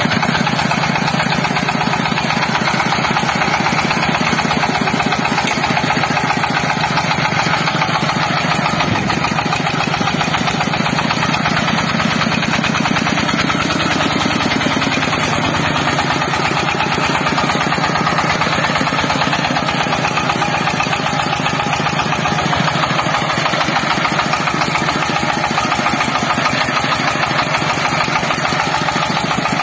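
Small red farm tractor's single-cylinder diesel engine running steadily as it drives slowly over a rough track, its firing chugging evenly.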